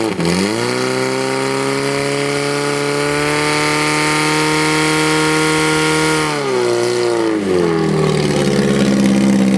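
Portable fire-fighting pump's engine revved up: it climbs in the first second and holds at high speed while the pump drives water through the hoses to the spray jets, then drops back to a lower speed about six seconds in and runs on unevenly.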